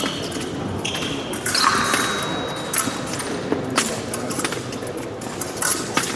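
Fencing hall ambience: scattered sharp clicks and knocks, a few short high squeaks, and a brief scuffing burst about a second and a half in, echoing in a large hall.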